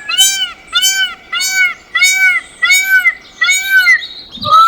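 Peacock calling a rapid series of short, arched, cat-like cries, about two a second, with a brief different call near the end.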